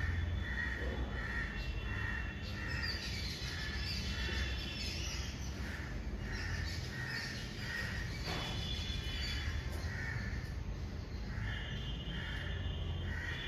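Crows cawing over and over, about twice a second with a few short pauses, with some thin higher chirps and a low steady hum beneath.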